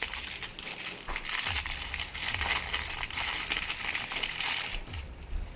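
Packaging crinkling and rustling as small statue parts are taken out of it, a dense run of small crackles that eases off near the end.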